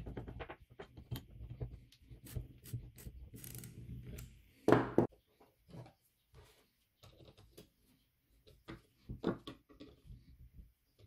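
Small metal clicks and knocks from tools and parts on a hand-cranked bench grinder being reassembled, with one louder clack about five seconds in, then scattered light taps.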